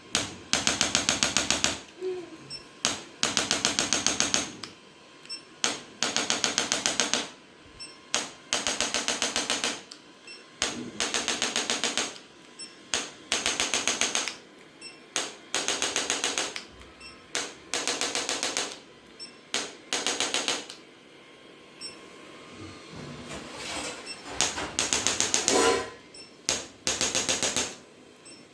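Handheld chiropractic adjusting instrument firing rapid clicking taps in bursts of about a second each, repeated over and over with short pauses between.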